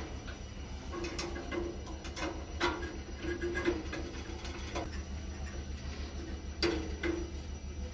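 Hand screwdriver driving screws into the sheet-metal burner assembly of a butane water heater: irregular metal clicks and scrapes, with a few louder knocks, over a steady low hum.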